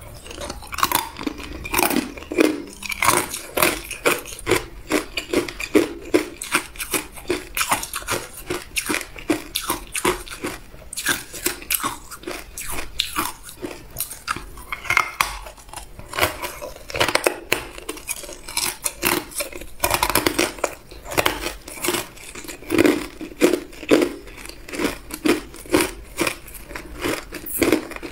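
A person biting and chewing hard ice, a rapid run of sharp crunches and cracks, several a second, with a few short pauses.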